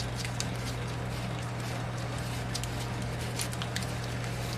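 Gloved hands unscrewing galvanized steel plumbing fittings, a hex bushing and coupling used as a homemade bearing puller: light, irregular clicks and ticks of metal and threads, over a steady low hum.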